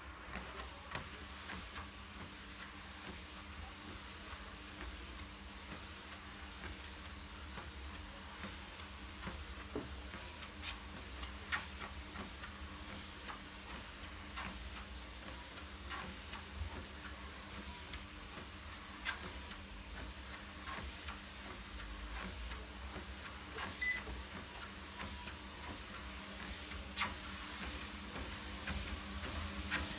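Fytter exercise machine running with a steady low hum and faint hiss, broken by sharp clicks every few seconds at uneven intervals: the noise fault the machine is being recorded for.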